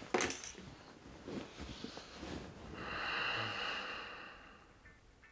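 A person stirring in bed: a brief rustle of bedding, then one long breathy exhale, about two seconds, that swells and fades.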